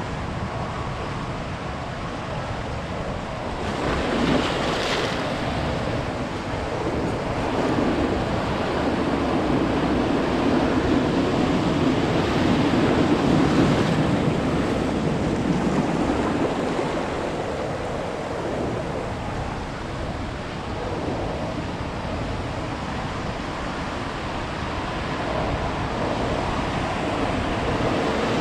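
Ocean surf breaking and washing up a beach, a continuous roar of water that swells louder about four seconds in, again through the middle, and once more near the end, with wind rumbling on the microphone.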